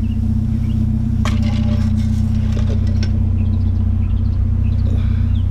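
Vehicle engine running steadily with a constant low hum, with a few light metallic clinks and knocks from chairs being handled, one about a second in and more near the end.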